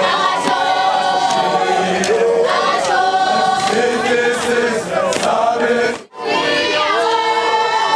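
Large crowd of voices singing together, many parts overlapping. The sound cuts out for an instant about six seconds in and then resumes.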